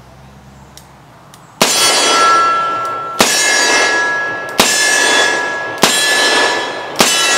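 Ruger Redhawk double-action revolver firing five shots of Buffalo Bore 45 Colt, a standard-pressure load with a 225-grain Barnes XPB solid-copper hollow point, about a second and a half apart. Each shot is followed by a long metallic ringing.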